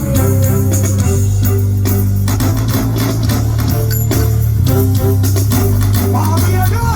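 Live reggae band playing an instrumental passage through a loud sound system: a heavy, steady bass line with guitar on the beat and no singing.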